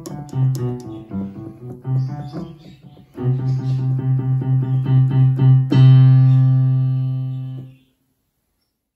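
Yamaha Genos arranger keyboard played by hand: a short run of separate notes, then one low note struck over and over about four times a second, ending on a held note that dies away. The keys are being tried out after a key replacement.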